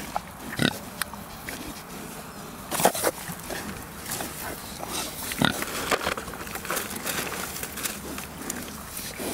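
Pigs chomping strawberries and snuffling through the grass. Irregular wet chewing and rooting noises, with a few louder grunts about three seconds in and again about five and a half seconds in.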